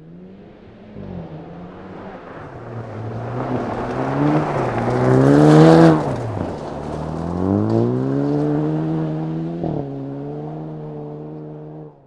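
Jaguar F-TYPE rally car's 2.0-litre four-cylinder engine revving hard through the gears on gravel, its pitch climbing and dropping back at each shift. It is loudest about six seconds in, then drops in pitch sharply, climbs again and holds a steady high note before cutting off near the end.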